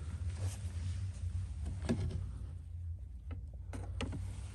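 A few faint knocks and clicks from handling the recliner's backrest as its metal brackets are lined up with the brackets on the chair frame, over a steady low hum.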